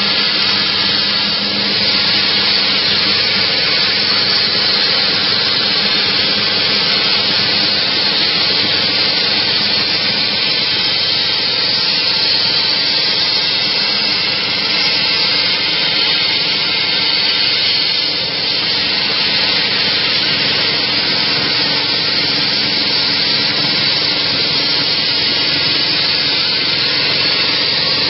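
Plasma cutting torch on a CNC table cutting steadily: a loud, even hiss with a steady low hum underneath.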